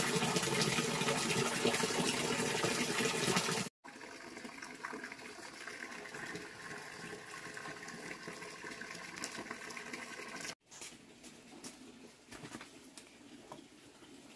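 Running water, loud for the first few seconds; after an abrupt cut it goes on more quietly, and after a second cut, a few seconds from the end, it gives way to light clicks and knocks.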